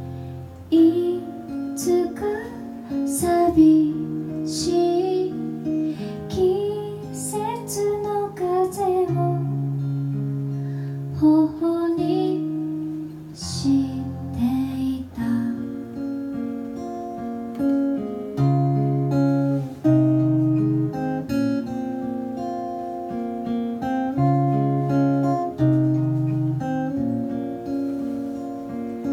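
A woman singing a Japanese folk song to her own acoustic guitar. About halfway through the voice stops and the guitar plays on alone.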